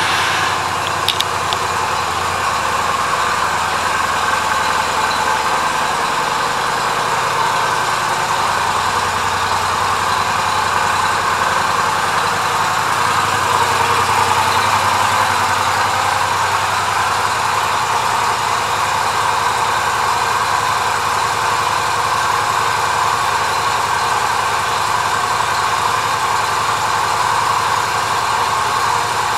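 2014 Yamaha V Star 250's small air-cooled V-twin engine idling steadily, just after being started.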